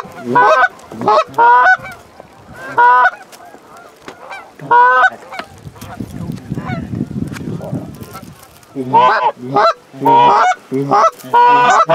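Canada goose honks and clucks, loud, in quick runs of short calls. The calling pauses for a few seconds in the middle, where a low rumbling noise is heard, and picks up again densely near the end.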